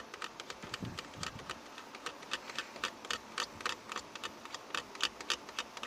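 Screwdriver tip scraping carbon deposits off the metal contact leaves of a car AC blower speed regulator: a quick, irregular run of small clicks and scratches. The carbon build-up on these contacts is what stops the blower fan from running.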